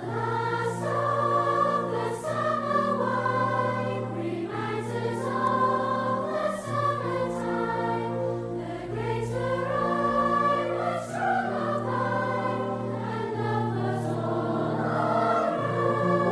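Background music: a choir singing sustained phrases over a steady low accompaniment.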